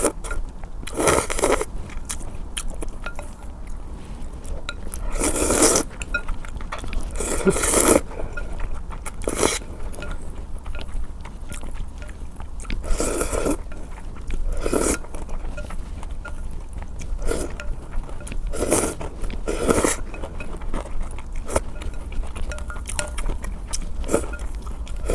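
Eating hot and sour sweet potato noodles (suanla fen): repeated slurps of about half a second to a second, with wet smacking and chewing clicks in between.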